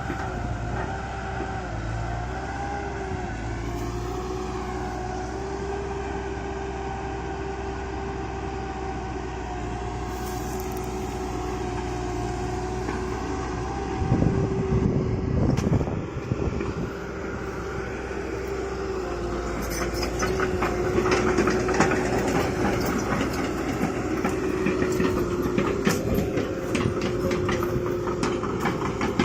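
Excavator's diesel engine running steadily with a held whine. It swells louder about 14 seconds in, and rapid metallic clanking and rattling join it from about 19 seconds in.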